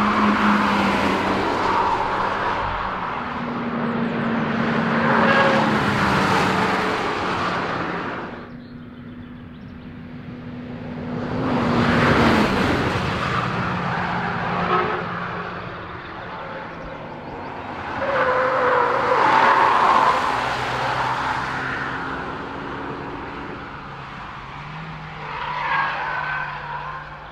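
Camouflaged Hyundai Veloster Turbo prototype driven hard past the microphone several times, its engine note swelling and fading about five times, with the pitch sliding up under acceleration and dropping as the car goes by, over tyre and road noise.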